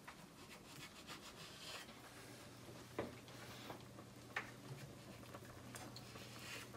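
Knife slicing salami on a wooden cutting board: faint scraping strokes, with a couple of sharper taps of the blade on the board.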